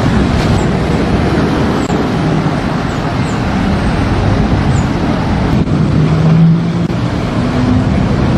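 Loud, steady rumble of motors and churning water on a flooded river, where water-pushing machines and boats are driving the current. A faint engine hum comes in about six seconds in and rises in pitch.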